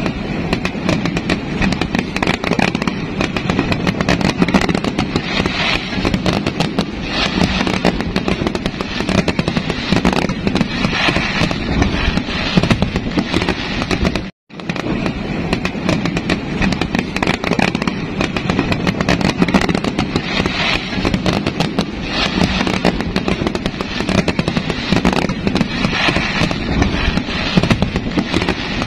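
Many fireworks going off at once in a dense, continuous crackling and banging. The sound cuts out briefly about halfway through, then goes on as before.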